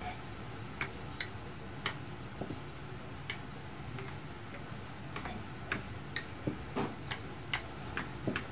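Wooden rolling pin rolling out a ball of bread dough on a floured mat, with light irregular clicks and taps, about one or two a second.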